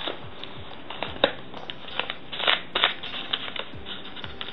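Hands rustling through shredded-paper packing fill and crinkling a paper-wrapped package: irregular papery rustling with sharp crackles, the loudest about a second in and twice more around two and a half seconds in.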